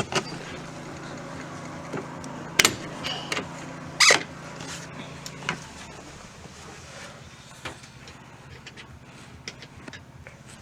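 Screwdrivers and a spatula prying at a plastic minivan sliding-door trim panel: scattered clicks, scrapes and sharp snaps, the loudest about two and a half and four seconds in. Under them runs a steady low hum that stops a little past halfway.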